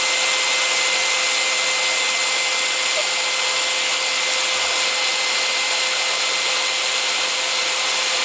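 Makita 40V XGT HP001GD cordless hammer driver-drill running with no load, trigger held: a steady whine over an even hiss, loud enough to read about 95–100 dB on a sound meter held beside it, a level that calls for ear protection. It cuts off near the end.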